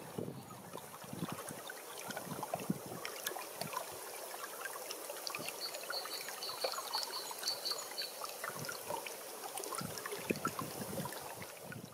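Shallow water of a small river trickling and gurgling past an edge of ice, with many small plinks and splashes.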